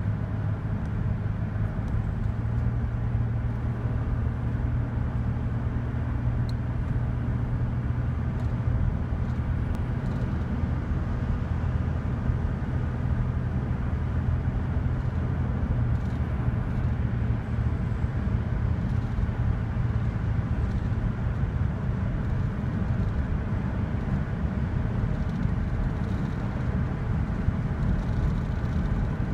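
A car driving at highway speed, heard inside the cabin: a steady low hum of engine and road noise.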